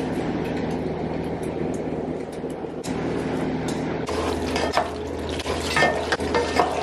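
Cooked cavatappi pasta tipped from a strainer into a pot of thick creamy spinach sauce, then stirred with a wooden spoon: wet squelching and stirring with clicks of the spoon against the pot, busier in the second half, over a steady low hum.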